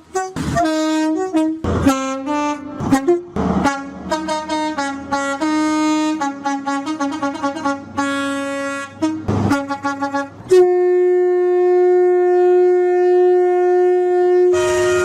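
British train air horns sounding a rapid series of short two-tone blasts, switching between a higher and a lower note. About ten seconds in, they give way to one long, steady single-note blast that lasts about four seconds and is the loudest sound.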